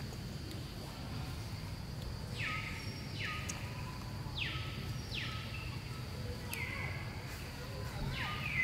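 A series of about six short, high animal calls, each sliding sharply downward, beginning about two seconds in, over a steady high-pitched insect drone.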